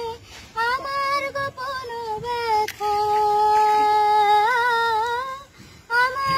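A young girl singing a Bengali song in a single melodic line, holding one long steady note about halfway through before the pitch climbs and falls again.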